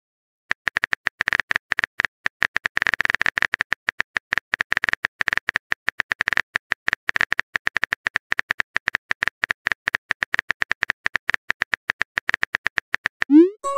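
Rapid phone-keyboard typing clicks, a texting sound effect, many taps a second with brief pauses. Near the end comes a short rising swoop.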